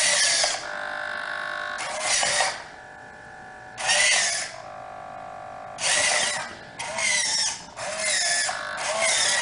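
Hobby servo motors in a 3D-printed animatronic hand whirring in about seven short bursts, each a little over half a second long and gliding slightly in pitch, as the fingers step through a programmed Arduino movement pattern. Between some bursts there is a fainter steady buzz from the servos holding position.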